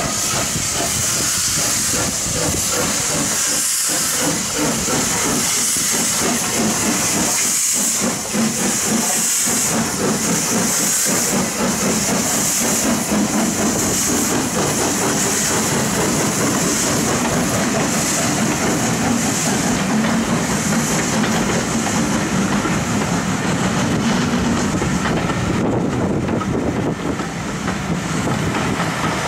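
SR Schools Class 4-4-0 steam locomotive 'Cheltenham' starting a train, with a loud steam hiss from its open cylinder drain cocks pulsing with each exhaust beat. Through the middle and later part, a rolling rumble of the coaches passing comes in under the hiss as the engine draws away.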